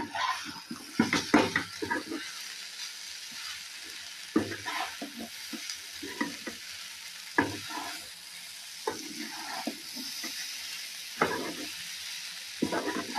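Spatula stirring and scraping poha (flattened rice) around a frying pan over a steady frying sizzle, with a scrape every second or two.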